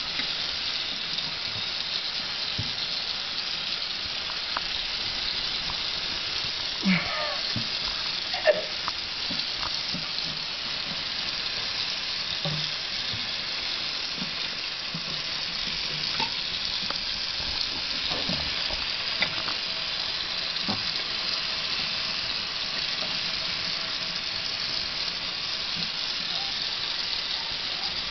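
Kitchen faucet running a steady stream of water into a stainless steel sink and over a puppy being washed, giving an even hiss. A couple of short, sharp sounds stand out about seven and eight and a half seconds in.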